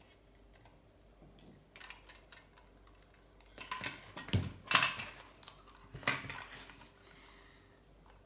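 Handling noises at a workbench: scattered small clicks and taps, with louder clattering, rustling bursts about four and then six seconds in.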